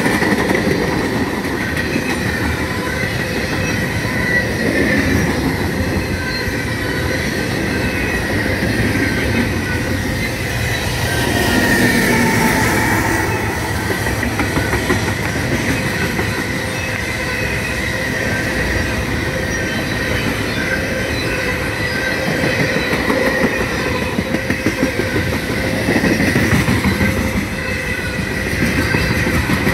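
Freight train cars rolling past close by: a steady rumble of steel wheels on rail, with a continuous high squeal from the wheels. The noise swells briefly about twelve seconds in.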